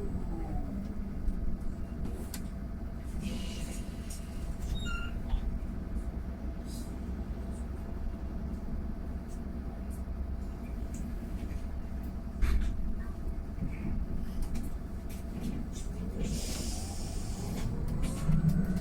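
Mercedes-Benz eCitaro G full-electric articulated bus: the electric drive whine falls in pitch as the bus slows to a halt. It then stands with a low rumble and a few clicks, and a short burst of air hiss comes about three-quarters of the way through. Near the end the drive whine rises again as it pulls away.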